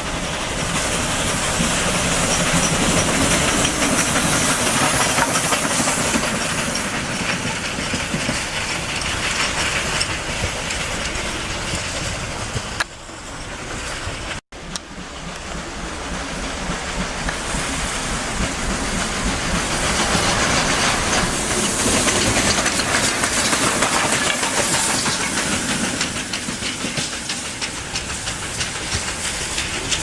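Steam locomotive noise: a loud, steady hiss of steam with the sound of a train running. There is a brief cut about halfway through where one recording gives way to another.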